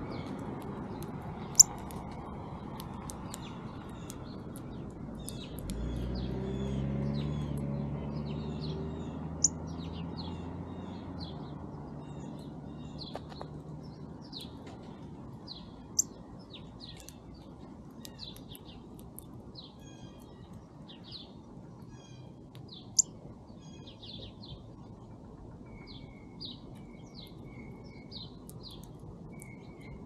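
Small songbirds chirping and calling, with four sharp, loud high notes spaced about seven seconds apart. A low engine hum swells about six seconds in and fades out over the next several seconds.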